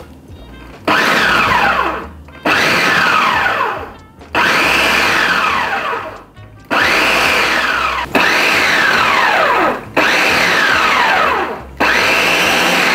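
Kitchen food processor pulsed about seven times in a row. Each pulse starts suddenly with a whine that falls in pitch as the blade slows. It is cutting cold butter into flour and salt until the mix turns to crumbs for shortcrust pastry.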